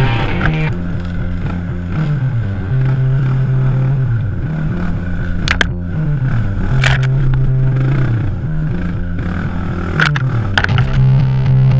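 Off-road motorcycle engine running under changing throttle, its pitch holding steady, then dropping and climbing again over and over, with a few sharp clacks along the way.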